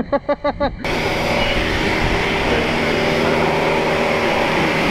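A few quick bursts of a person's voice, then, about a second in, a steady loud hiss of high-pressure water spraying from a car-wash wand onto the bed.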